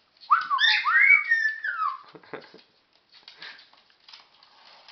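Black-headed caique calling: a quick run of whistled notes that swoop up and down. It is followed by a few faint taps and scratches.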